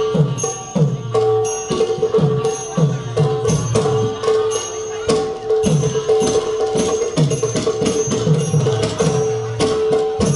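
Manipuri classical dance music: a barrel drum (pung) playing quick strokes that bend down in pitch, two or three a second, over a held, slowly moving melody line, with cymbals jingling on the beat.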